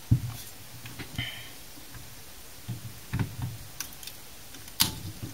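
Irregular clicks and light knocks of a hand tool picking and scraping at darkened, hardened tan glue inside a computer power supply, with one brief squeaky scrape about a second in and a sharp click just before the end.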